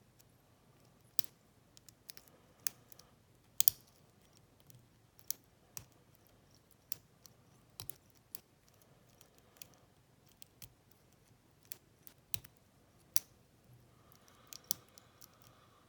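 Lock pick and tension wrench working the pin tumblers of a Lane 25 mm brass padlock: irregular, sharp little metal clicks, about one or two a second.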